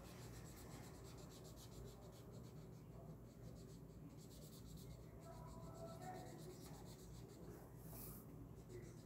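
Faint scratching of a felt-tip marker colouring on lined paper, in quick back-and-forth strokes. About eight seconds in, the paper is moved with a brief rustle.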